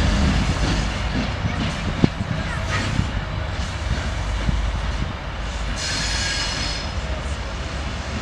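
2M62U two-section diesel locomotive running away on curved track, its two-stroke diesel engines giving a steady low rumble that grows fainter. A few sharp knocks come from the wheels over the track, and a brief high wheel squeal comes about six seconds in.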